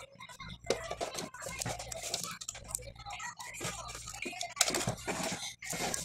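Plastic housing of a Panasonic phone base being taken apart with a screwdriver: irregular clicks, taps and scrapes of the tool and of hands on the plastic. The noise is busiest a little before the end, as the casing is handled and pulled apart.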